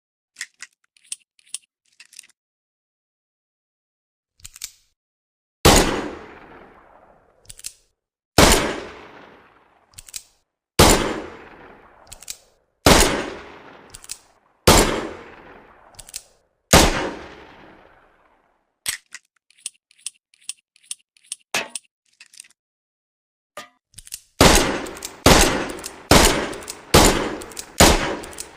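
Model 10H revolver sound effect: a few light mechanical clicks, then six loud shots fired slowly, about two seconds apart, each trailing off in a long echo. A run of small metallic clicks follows, like a cylinder being worked, and near the end about six more shots come in quick succession, under a second apart.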